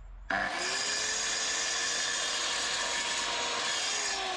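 Scheppach plunge-cut circular saw on its guide rail starting up and cutting through a block of exotic hardwood, a steady motor whine under the noise of the blade in the wood. The motor's pitch rises as it spins up just after the start and drops near the end.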